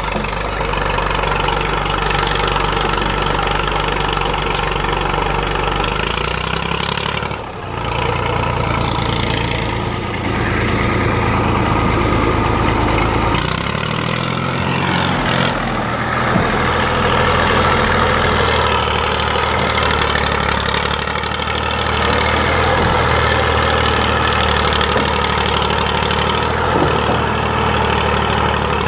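IMT 542 tractor's three-cylinder diesel running hard while dragging a heavy oak log. The engine speed dips briefly about seven seconds in and shifts again about halfway through.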